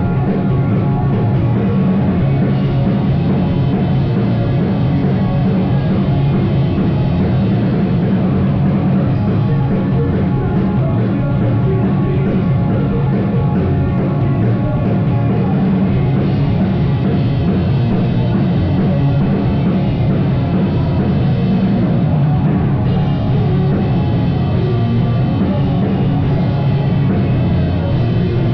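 Loud live rock band playing an instrumental passage with distorted guitars and a drum kit, the sound dense and unbroken.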